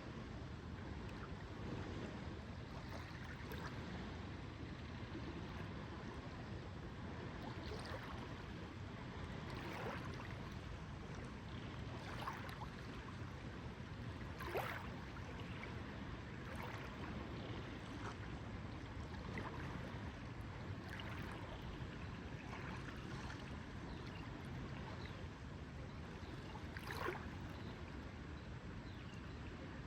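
Lake water lapping gently at the shore, a steady wash with scattered small splashes and drips, a few a little louder than the rest.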